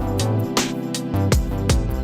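Background music with a steady beat, with guitar or other plucked strings.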